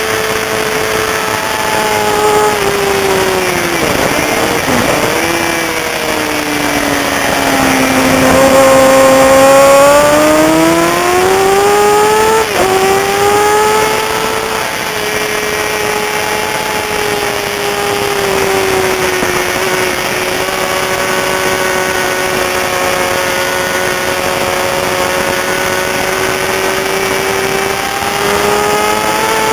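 Racing motorcycle engine at speed. Its pitch falls steeply a few seconds in as it slows, then climbs through two quick upshifts where the pitch drops sharply. It holds fairly steady before rising again near the end, over steady rushing wind noise.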